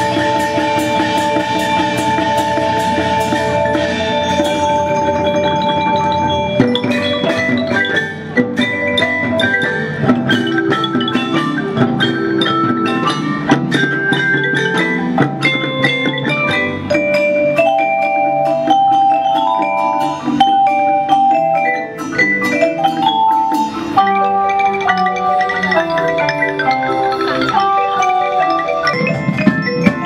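Elementary-school percussion band playing a tune on tuned mallet instruments over drums. A sustained chord gives way, about six seconds in, to quick struck melody notes.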